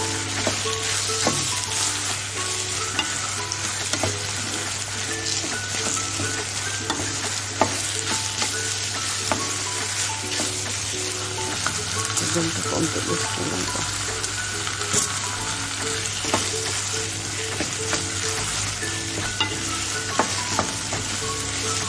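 Peas, tomato and tomato paste sizzling in a stainless steel pan while being stirred with a wooden spoon, with scattered light knocks of the spoon against the pan.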